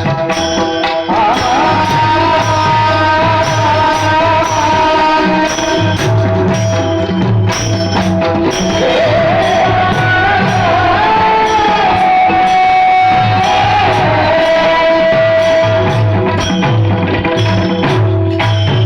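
Devotional kirtan music: a held melody that glides between notes over a steady beat of low drum strokes and small hand cymbals.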